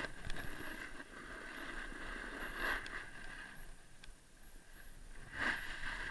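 Skis or snowboard sliding and scraping over packed, chopped-up piste snow during a downhill run, a continuous hiss that swells three times: at the start, about halfway, and near the end.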